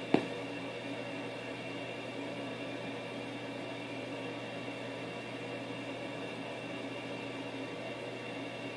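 Steady background hum with several steady tones, like a fan or appliance running, with one sharp tap just after the start.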